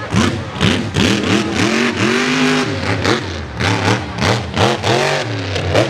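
Mega mud truck's big engine revving up and down over and over, about two quick rises and falls in pitch a second, with one longer pull about two seconds in. Loud hissing spray of mud from its tires runs under the engine sound.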